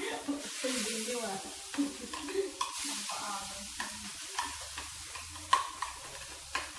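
A mayonnaise-based sauce being mixed by hand in a plastic bowl: a steady wet squishing and scraping, broken by a few sharp knocks, the loudest about five and a half seconds in.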